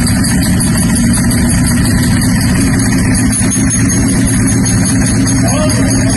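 A vehicle engine running steadily at idle just after starting, a loud, even low rumble.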